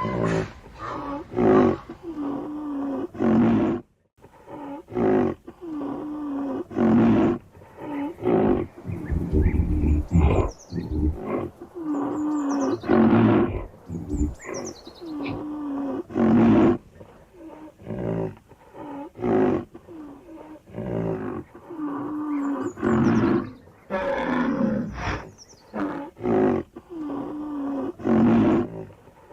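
Rhinoceros calling: loud, deep pitched calls repeated every one to three seconds, with a few short high chirps of birds falling in pitch in between.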